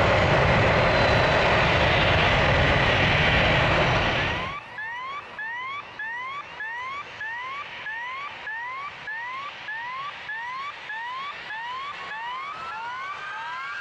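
Boeing 737-900 BBJ's CFM56-7 turbofans running loud at high power for takeoff. The roar cuts off abruptly about four and a half seconds in and gives way to a quieter background, where a short rising chirp repeats about twice a second and a longer tone rises and falls near the end.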